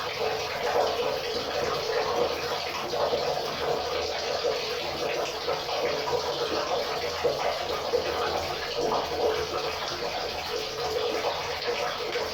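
River water flowing and burbling over rocks, a steady, unbroken rush with a constant splashing texture.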